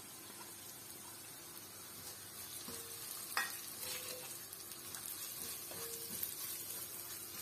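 Shallots, curry leaves and chilli powder frying faintly in oil in an iron pan, kept on a low flame. From about two and a half seconds in, a metal spoon stirs and scrapes the mixture around the pan, with a knock on the pan near the middle and a few short squeaky scrapes.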